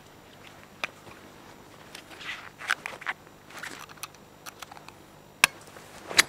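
Footsteps through dry grass with rustling, and a few sharp clicks, the loudest two near the end.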